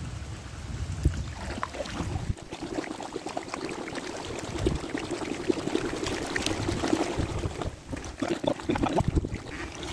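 Water pouring and trickling off the hillside through an inlet into the canal, a steady splashing with many small drips and ticks.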